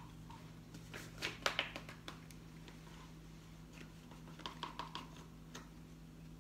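Light rustling and clicking of a paper flour bag and a plastic measuring cup as flour is tipped into the cup, in short clusters about a second in and again around four to five seconds in, over a steady low hum.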